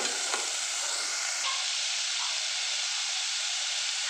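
Chopped pepper elder greens and shallots frying in hot coconut oil in a pan, giving a steady sizzling hiss, with a few light clicks of a metal spoon in the first half second.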